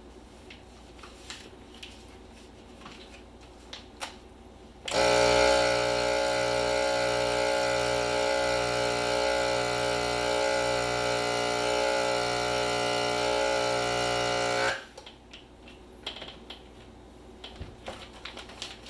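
Countertop vacuum sealer's pump motor running with a steady buzzing hum for about ten seconds while it draws the air out of a bag of ground deer meat, then cutting off abruptly. Faint clicks and handling come before and after it.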